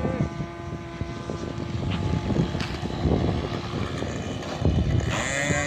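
RC model airplane's engine running, its propeller giving a steady drone.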